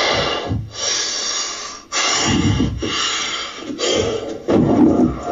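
A man breathing hard and fast, each loud breath in and out following the last about once a second, in a rough phone recording.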